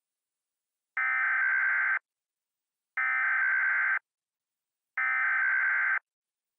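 Emergency Alert System SAME header: three one-second bursts of buzzy digital data tones, each followed by a second of silence, encoding the alert before the attention tone.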